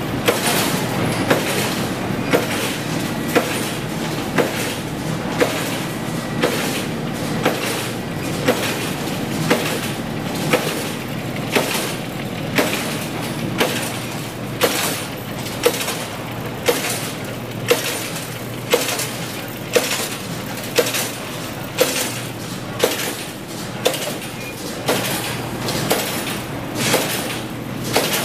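Automatic wire straightening-and-cutting machine running with a steady mechanical noise, its cutter striking with a sharp clank about once a second as it cuts steel wire into lengths.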